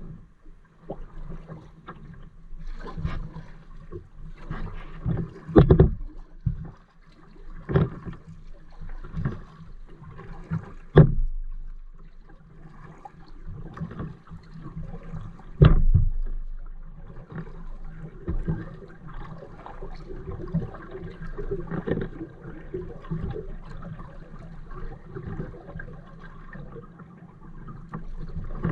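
Kayak being paddled: irregular paddle strokes splashing and dripping in the water, with three louder sharp knocks spread through.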